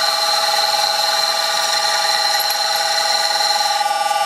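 Old metal lathe running with a tool bit cutting a hole in the centre of a spinning thin metal jar lid, giving a steady high-pitched squeal. Near the end the squeal changes pitch as the tool breaks through the lid.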